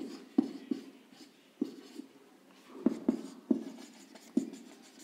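Marker pen writing on a whiteboard: a run of short, irregular taps and scratches, about two a second, as letters are drawn.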